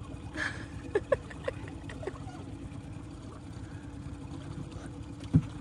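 Boat motor running with a steady low hum. A few light knocks come in the first couple of seconds, and a sharper, louder knock comes near the end.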